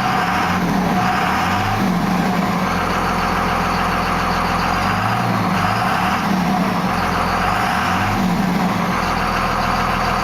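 A Cummins 5.9-litre inline-six turbo diesel in a 1998 Dodge Ram 2500, running steadily. Its sound swells and eases back every couple of seconds.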